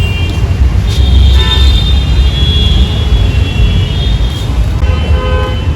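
Road traffic: a heavy, uneven low rumble of vehicles, with steady high-pitched tones over it and short horn toots about a second and a half in and again near the end.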